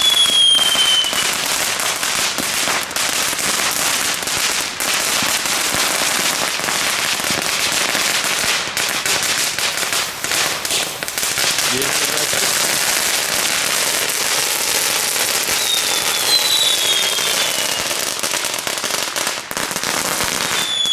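Hand-held Knetter King crackling fountain stick burning, a continuous dense crackle as it sprays sparks. Short falling whistles are heard just after the start and again around 16 seconds in.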